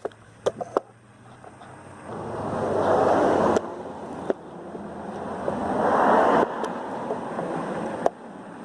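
Aerosol spray can, repressurised with air from a tire pump, spraying in two long hissing bursts that each build up and stop abruptly, followed by a weaker hiss.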